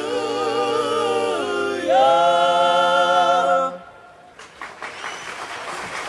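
Mixed male and female a cappella quartet holding the final chords of a gospel freedom song with wavering vibrato. A higher closing chord comes in about two seconds in, and all the voices cut off together at about four seconds. Audience applause follows about half a second later.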